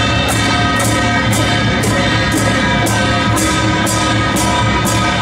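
Temple procession percussion troupe playing drums and brass hand cymbals, the cymbals clashing about twice a second over a steady drum beat, with a held melody line above.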